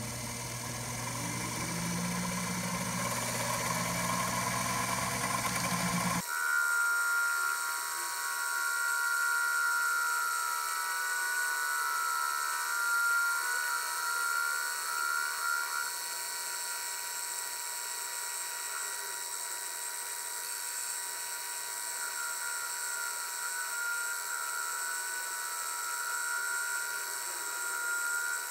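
7x14 mini lathe running with a four-jaw chuck while facing aluminium square stock: a steady machine whine with a low motor hum. About six seconds in the sound changes abruptly, losing its low hum and becoming a higher, thinner whine that holds steady.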